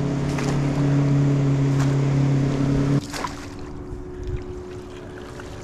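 A motor runs with a steady, even drone, then stops suddenly about three seconds in. A fainter steady hum and hiss remain after it.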